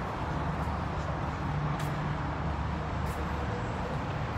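Steady outdoor traffic noise, a low rumble of passing cars, with a few faint ticks.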